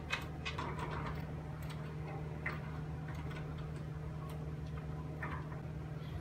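Scattered small clicks and taps of hands handling a homemade wooden scroll saw's arm and metal blade clamp while fitting the blade, over a steady low hum.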